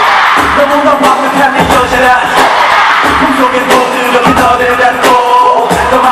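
Live K-pop concert music with singing over a steady, heavy beat, played loud through the arena sound system.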